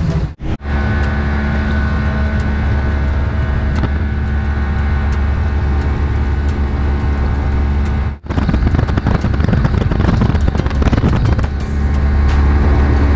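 Boat motor running with a steady low drone. The sound cuts out briefly twice, just after the start and about two-thirds of the way through.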